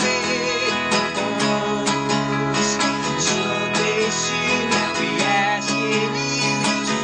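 A small band playing live: a strummed acoustic guitar with an electric bass and an electric guitar, and a man singing.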